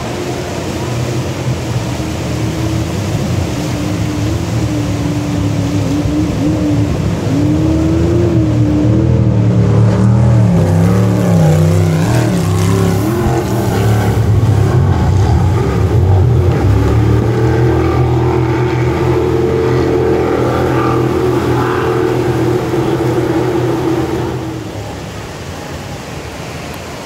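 Racing jet boat's engine running hard as the boat comes nearer, passes by and draws off, loudest in the middle and dropping away near the end. Its pitch wavers up and down as it powers through the rapids, over the steady rush of whitewater.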